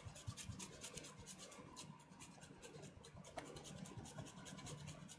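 Faint, quick scratching and rasping as Pecorino Romano cheese is added to the bowl, with a low steady hum underneath.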